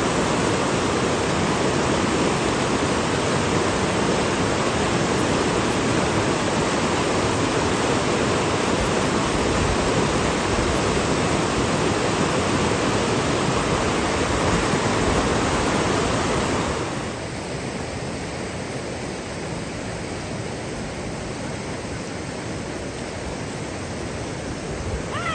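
Steady rushing of a rain-swollen creek running high with runoff. About two-thirds of the way through it drops to a quieter, duller rush.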